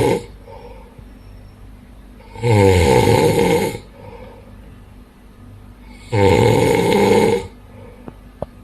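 A sleeping man snoring loudly: two long, rough snores, each over a second, about three and a half seconds apart, with quieter breathing between them.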